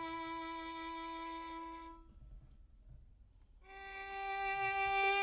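Slow background music: a single bowed string instrument holding long notes with vibrato. One note fades out about two seconds in, a short near-silent pause follows, then a higher note swells back in.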